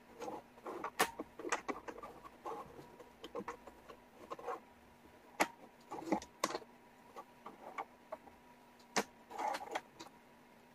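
Wooden jigsaw puzzle pieces clicking and clattering as hands pick them up, shuffle and fit them: irregular light clicks and short rattles, with a faint steady hum underneath.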